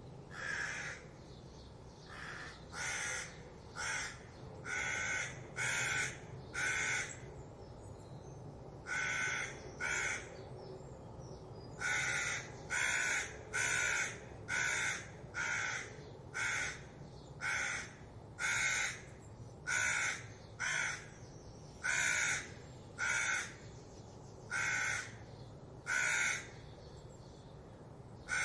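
Crows cawing in a long series of alarm calls, about one caw a second with a couple of short pauses; the crows are raising the alarm at a fox.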